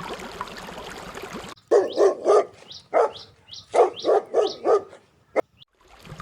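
Dog barking: about eight sharp barks in two quick runs, starting about a second and a half in, followed by a single click.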